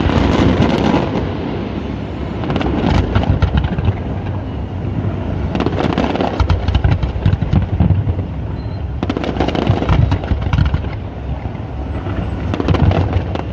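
Aerial fireworks display: a constant low rumble of shell bursts, with clusters of rapid crackling bangs every few seconds.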